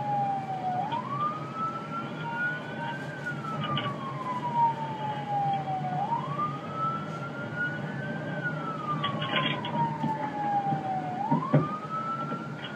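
Police patrol car siren in wail mode, its pitch climbing and then falling slowly, a full cycle about every five seconds, over a low steady hum. It comes from dashcam footage played back over room speakers.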